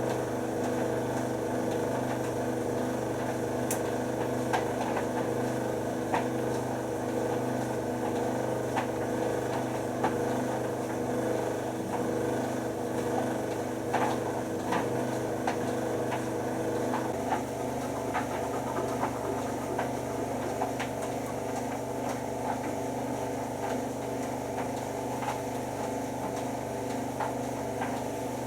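White Knight C44A7W vented tumble dryer running with a load: a steady motor and drum hum with light clicks from the tumbling load. The hum's tone changes about two-thirds of the way through.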